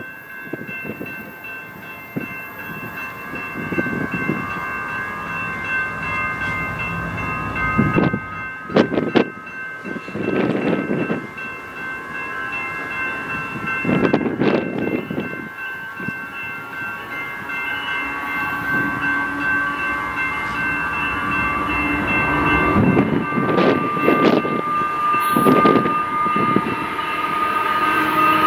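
BNSF freight train approaching on a curve, its wheels giving a steady high-pitched squeal over a rumble that grows louder as the locomotives near.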